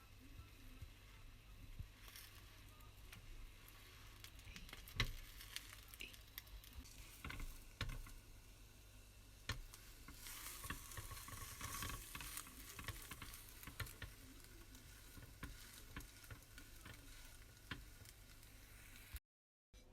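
Food frying in a pan, a faint steady sizzle with a utensil stirring and knocking against the pan now and then; the sizzle swells for a couple of seconds about halfway through.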